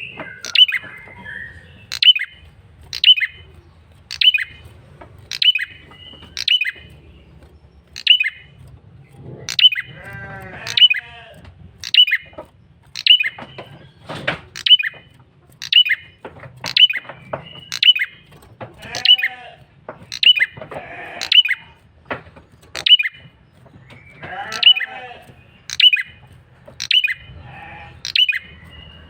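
Male prenjak kepala merah, a small Indonesian songbird, calling insistently as a lure recording. It gives sharp, high calls about once a second, with a few lower, harsher chattering calls mixed in now and then.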